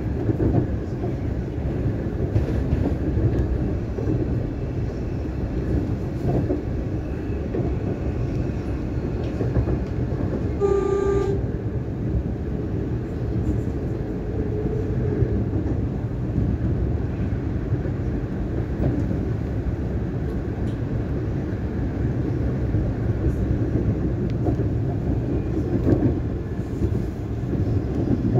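Siemens Nexas electric suburban train running along the line, heard from inside the carriage as a steady low rumble of wheels and motors. A single short steady tone sounds about eleven seconds in.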